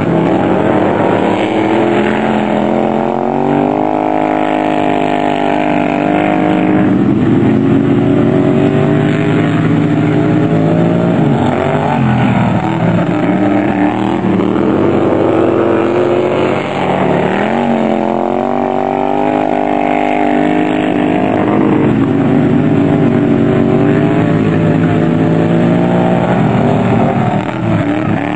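Several racing lawn mowers' engines running hard, their pitch rising and falling over and over as they accelerate down the straights, ease off into the turns and pass by.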